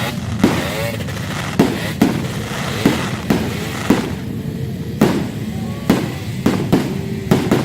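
New Year fireworks going off in a rapid, irregular run of sharp bangs, about two a second, over steady background noise from the crowd.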